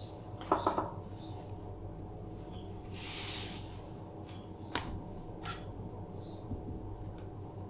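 Quiet handling sounds at a wooden sushi cutting board over a steady low hum. About half a second in there are a few quick clinks, around three seconds in a short rustle of a paper towel, and near five seconds a single light tap.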